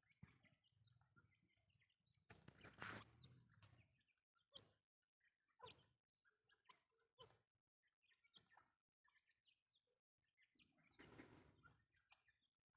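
Very faint, scattered short chirps and soft clucks of a grey francolin, with two brief swells of noise about two and a half seconds and eleven seconds in.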